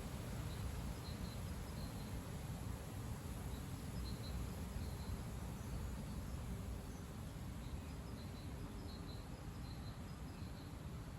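Strong gusty wind: a steady, low rumbling noise that eases slightly towards the end, with faint short high chirps scattered through it.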